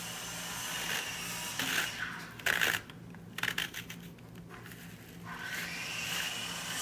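Paper and a card tube being handled: a few short rustles and scrapes, the sharpest about two and a half seconds in, over a steady low hum.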